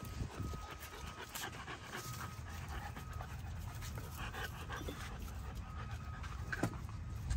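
American bully puppy panting steadily, with a few light clicks.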